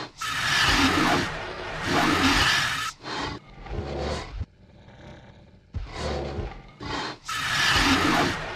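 Dinosaur roar sound effects: two long, loud roars in quick succession, then several shorter growls, a short lull around the middle, and more roars building to another long, loud one near the end.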